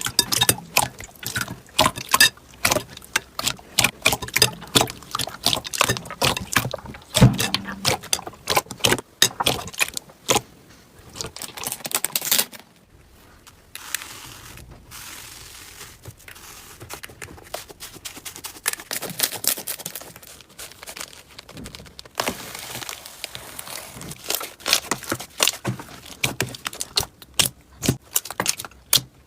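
Slime being squeezed, stretched and poked by hand: rapid sticky crackling pops and clicks, with a softer, quieter stretch in the middle.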